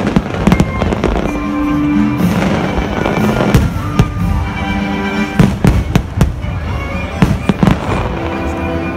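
Aerial fireworks bursting overhead in a rapid, uneven series of sharp bangs, with music playing beneath them in steady held tones.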